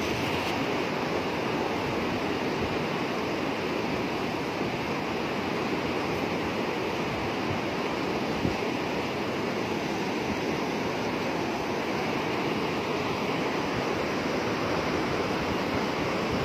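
Steady rush of water pouring through a water gate (sluice), an even, unbroken noise.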